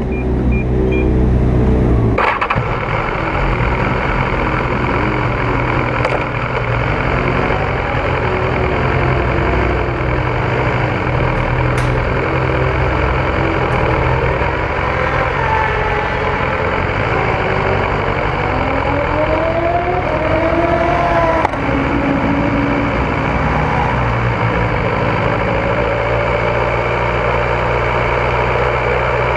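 Sport motorcycle engines idling, then running at low speed with the pitch rising and falling between about fifteen and twenty-two seconds in.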